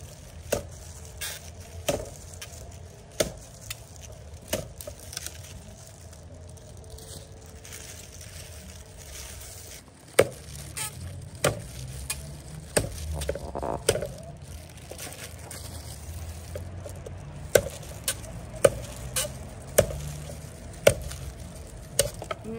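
A cleaver chopping a sugarcane stalk into sections on a round wooden chopping block: sharp single chops at uneven intervals, a handful at first, a pause of several seconds, then more chops.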